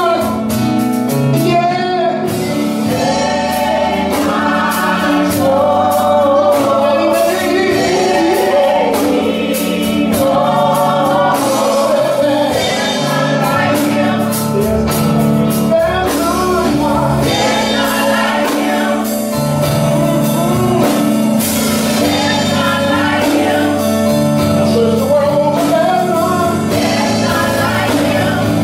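Gospel praise team singing together, backed by the church band on keyboard and drums.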